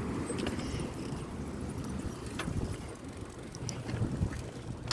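Steady outdoor background noise with a low hum and a few faint, scattered clicks.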